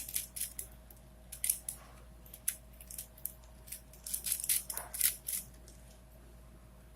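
Plastic clicking and clacking of a 4x4x4 Rubik's cube (Rubik's Revenge) being twisted by hand, in quick irregular flurries of turns with short pauses, falling quiet for about the last second and a half.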